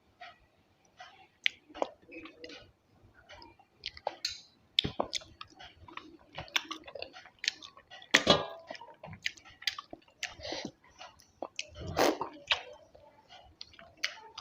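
Close-up eating sounds: a person chewing a mouthful of rice and curry with irregular wet smacks and clicks. Louder squelching bursts come about 8 and 12 seconds in.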